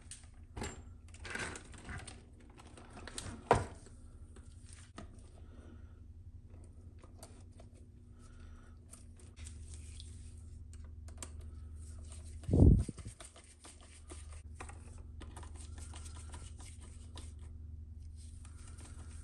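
Small clicks and rattles of a screwdriver and mounting hardware as shock absorbers are screwed onto an RC truck's chassis. A single dull thump, the loudest sound, comes about two-thirds of the way through.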